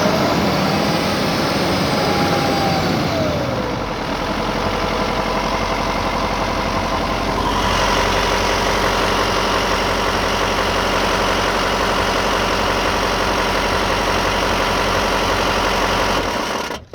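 LBZ Duramax 6.6-litre V8 turbodiesel running with the rattle it is recorded for. A whine rises and falls in the first few seconds, the sound turns brighter about halfway through, and it cuts off suddenly near the end.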